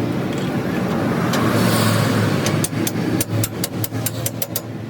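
Steady vehicle engine and traffic noise with a low hum. About halfway through, a fast run of sharp taps starts, around six a second for a couple of seconds.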